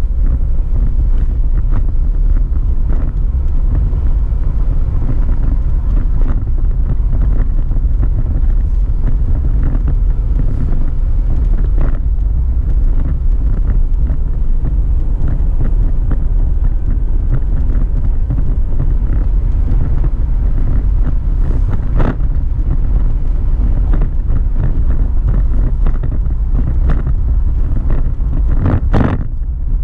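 Car driving along a narrow, winding road, heard from inside the cabin: a steady low rumble of road and engine noise with wind buffeting the microphone. A couple of sharp knocks stand out in the second half.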